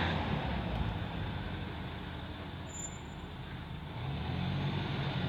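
A car engine running close by, its low hum fading through the middle and rising again about four seconds in.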